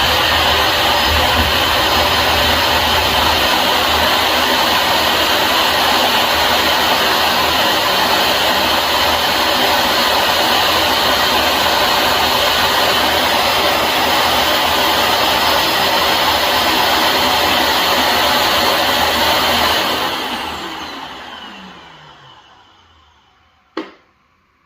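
The ECOVACS DEEBOT T8 AIVI auto-empty station's suction motor runs loudly and steadily, sucking debris out of the docked robot's dustbin into the station's bag. After about twenty seconds it shuts off and winds down, its pitch falling, and a single click follows near the end.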